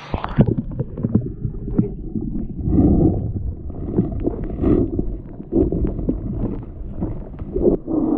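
Stream water heard underwater: a muffled, low gurgling rumble with irregular surges about once a second and many sharp clicks and ticks.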